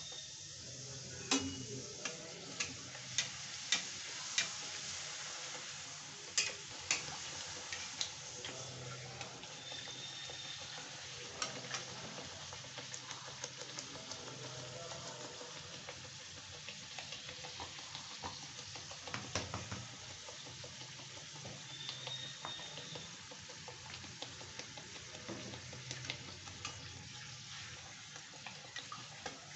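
Whole-wheat puri deep-frying in hot oil in a kadhai: a steady sizzle, broken by sharp clicks and taps of a metal spatula working the puri against the pan. A quick run of about six clicks comes in the first few seconds, then scattered ones.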